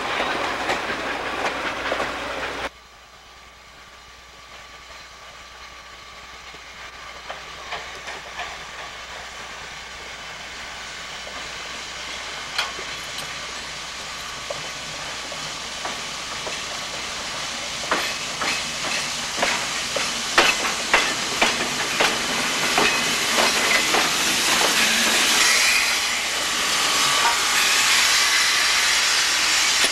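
Passenger cars rolling past with clickety-clack from the wheels, cut off suddenly about three seconds in. Then Sierra Railway steam locomotive No. 28, a 2-8-0, comes closer and grows steadily louder, with sharp metallic clanks and a hiss of steam that swells near the end.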